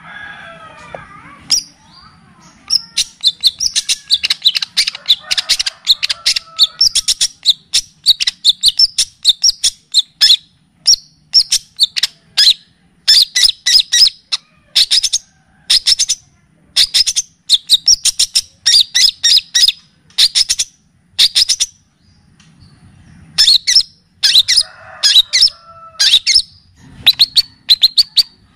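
Songbird song: fast runs of sharp, high chirps broken by short pauses, with a softer, lower warble near the start and again about 25 seconds in.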